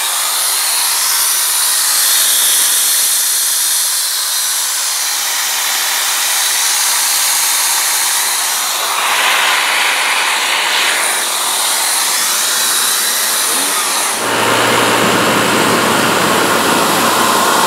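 Homemade turbojet built from a small junk turbocharger, running with a loud steady rushing hiss. About fourteen seconds in the sound changes: a low hum joins and the rush fills out lower.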